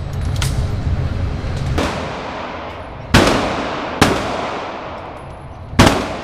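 Glock 9mm pistol shots: two fainter shots early on, then three loud shots about a second or so apart, each followed by a long echoing tail.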